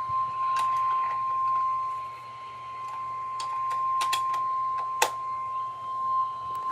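NOAA Weather Radio 1050 Hz warning alarm tone: a single steady high tone that signals a warning broadcast, here a severe thunderstorm warning. A few sharp clicks sound over it.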